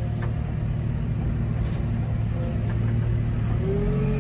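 JCB 535-95 telehandler's diesel engine running steadily, heard from inside the cab as the loaded boom is raised toward the top of a straw stack. A faint whine rises in near the end.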